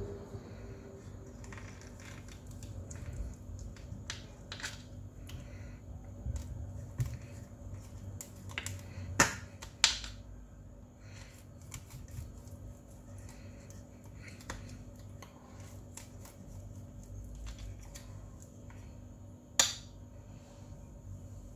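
A knife cutting set barfi in a stainless steel tray: scattered small clicks and scrapes of the blade against the steel, with three sharp clinks, two close together about halfway through and one near the end.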